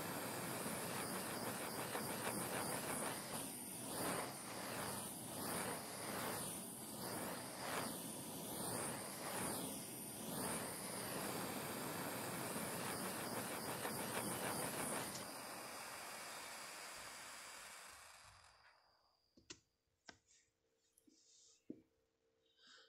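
Steady rushing hiss of a handheld tool played over a wood carving, stopping about 15 seconds in and fading away over the next few seconds. A few light clicks and knocks follow near the end.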